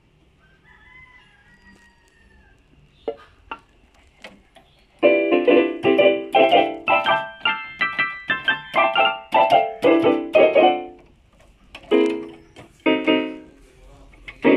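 Yamaha PSR-150 portable keyboard being played as a test after a repair. After a few quiet seconds with a few clicks, a quick run of notes and chords starts about five seconds in, followed by separate chords near the end.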